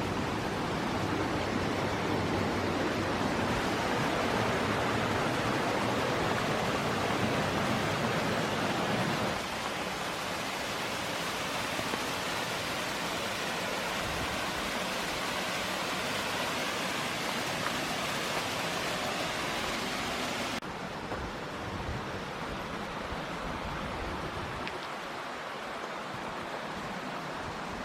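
Steady rush of mountain water, an even noise with no pitch. It drops suddenly to a lower level about 9 seconds in and again about 20 seconds in.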